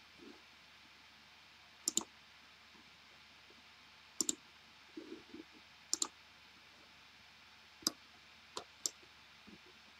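Computer mouse button clicks: about six short, sharp clicks spaced a second or two apart, several of them in quick pairs, with a few softer knocks in between.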